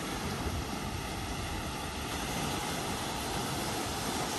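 Steady wash of gentle surf with wind on the microphone.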